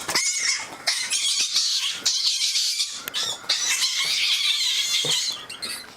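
Fennec fox making harsh, high-pitched squealing calls in several bursts of about a second each.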